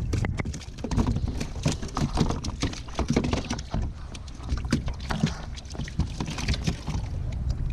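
Irregular knocks and taps against a plastic fishing kayak as a fish and line are handled at its side, over a steady low rumble of wind on the microphone.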